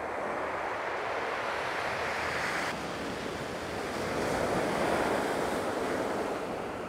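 Ocean surf washing up on a beach: a steady rushing wash that swells twice.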